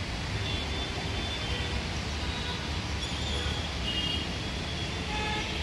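Steady outdoor background noise, a low rumble under an even hiss, with faint short high chirps scattered through it.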